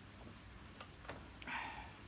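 Faint plastic clicks and then a short scraping rasp about one and a half seconds in, from the brush roll being worked out of the floor head of a Hoover Purepower upright vacuum.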